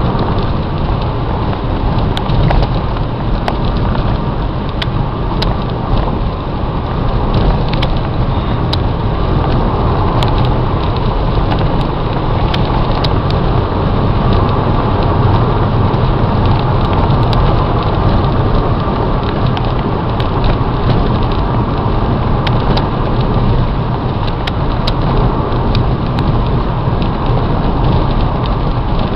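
Renaultsport Megane 225 Trophy, with its 2.0-litre turbocharged four-cylinder, heard from inside the cabin at speed: a steady, loud rumble of engine, tyre and wind noise, at a fairly even pace with no big rev sweeps, and scattered light clicks throughout.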